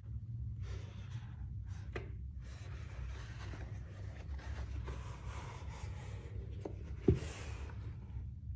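Rustling and scraping of items being handled by hand, with a few small taps and one sharp click just after seven seconds, over a steady low hum.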